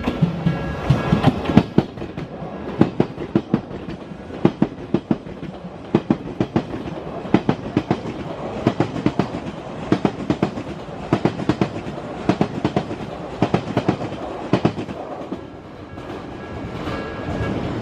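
Odakyu Line electric train passing over a level crossing, its wheels clattering over the rail joints in repeated groups of sharp clacks. A level crossing warning bell rings steadily, heard most clearly near the end as the clatter thins out.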